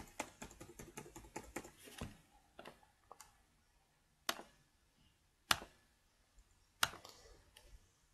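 Typing on a computer keyboard: a quick run of keystrokes for about two seconds, then a few single clicks about a second apart.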